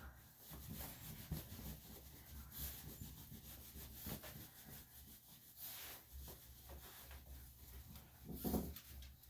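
A terry-cloth towel rubbing the wet coat of a small dog, a Yorkshire Terrier, during towel-drying: soft, irregular swishing strokes, with a louder brief rustle near the end.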